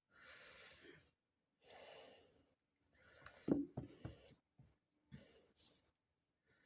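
Faint breathing close to the microphone: three slow breaths about a second long each, followed by a few soft knocks.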